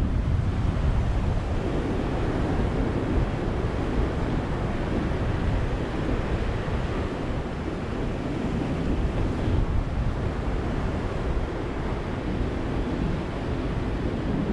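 Ocean surf: waves washing in as a steady, even rush with no distinct single breaks.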